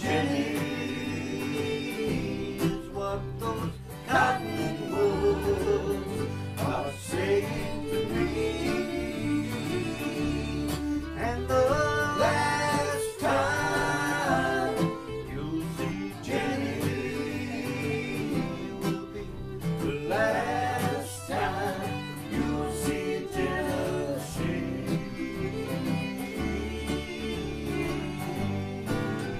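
Acoustic bluegrass band playing a song: fiddle and guitars, with voices singing verses in phrases.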